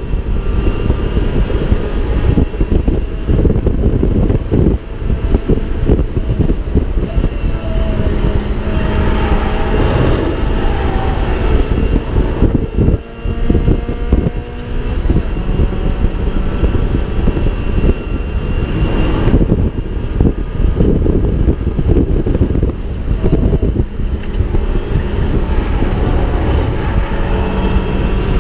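Mazda MX-5 race car's four-cylinder engine heard from onboard at racing speed, its pitch climbing and falling as it is driven through the gears, over heavy rumble and wind buffeting. About halfway through it briefly drops away and then picks up again.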